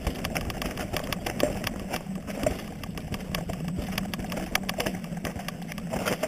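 A bike ridden down a wet, rocky forest trail, rattling and knocking over roots and stones, with a steady low hum underneath.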